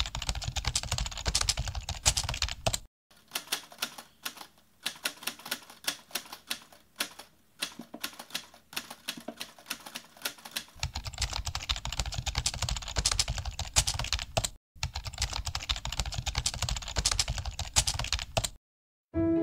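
Rapid typing on a keyboard, a fast run of clicks that thins out for several seconds and then picks up again, stopping shortly before the end.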